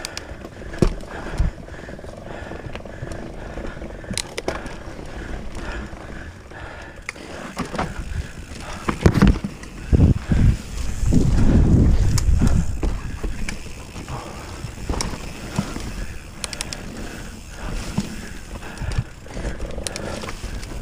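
Commencal mountain bike descending a rough trail: tyres rolling over dirt and rocks with frequent sharp knocks and rattles from the bike, and a louder, heavier stretch of rushing, clattering noise around the middle.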